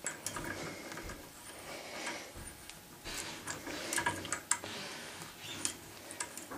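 Hand tap turned by a small T-handle tap wrench inside a tapping guide's steel sleeve, cutting a 1/4-20 thread: quiet, irregular metallic clicks and ticks as the handle is turned and regripped.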